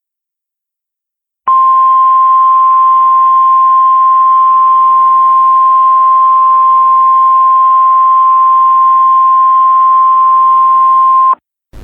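Emergency Alert System attention tone: one loud, steady single-pitch tone just above 1 kHz, over a faint hiss. It starts about a second and a half in, lasts about ten seconds, and cuts off suddenly near the end, the signal that an emergency voice message follows.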